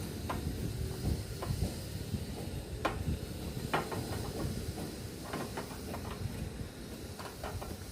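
Light clicks and taps scattered through a steady low rumble with a faint hiss, as glass tubes of a solar water heater are handled and pushed into the tank's rubber-sealed holes.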